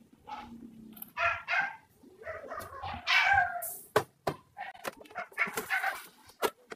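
A puppy whining and yipping in short, high-pitched calls, one falling in pitch, with a few sharp knocks from a plastic storage drawer being handled.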